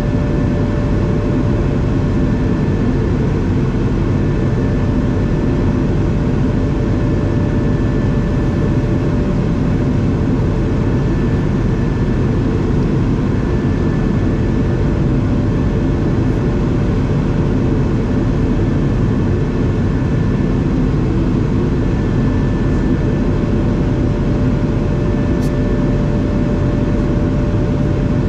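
Steady cabin noise of an Airbus A220 in flight, heard from a window seat over the wing: its Pratt & Whitney PW1500G geared turbofan engines running with a steady hum over a constant rush of airflow.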